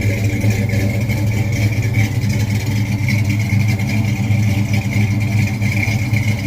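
Loud engine running steadily at a constant speed.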